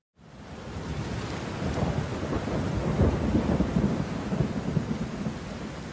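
Rain falling with a low, crackling rumble of thunder, fading in over the first second.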